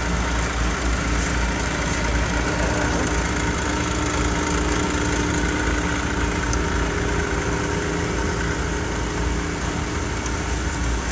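Snowmobile engine running steadily, with a continuous low rumble and an even drone.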